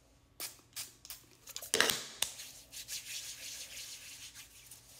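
A few light clicks and a short spray from a pump-mist hand-sanitizer bottle about two seconds in, then hands rubbing together steadily, working the sanitizer in.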